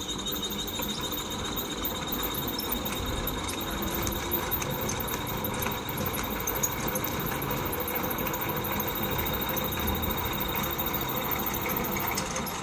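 Small electric motor running under heavy load, turning a belt-driven flywheel and pulley rig with a steady high whine and fast, even ticking. The motor is overloaded and too small for the load, and is smoking.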